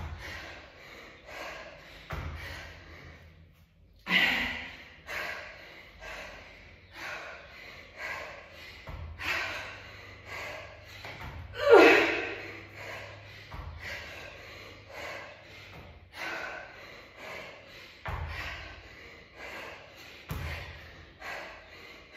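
A person breathing hard and fast while exercising: short sharp breaths about every three-quarters of a second, with a louder voiced exhale falling in pitch about twelve seconds in. A few dull thuds sound under the breathing.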